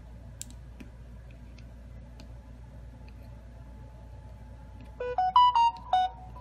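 A quick run of about six short electronic notes about five seconds in, stepping up in pitch and then back down, like a device chime or jingle. Under it are a faint steady hum and a few light ticks.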